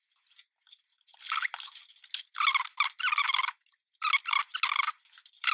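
Liquid craft glue squeezed from a squeeze bottle, sputtering and squelching through the nozzle in several spurts as it is laid on paper, followed by a rustle of the glued paper sheet being handled.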